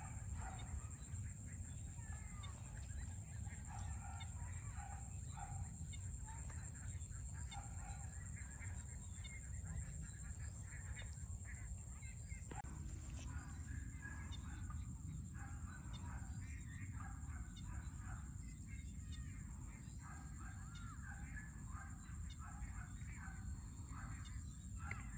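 Chickens clucking and other birds calling over a steady low rumble and a constant high-pitched hiss. The calls come thicker in the second half.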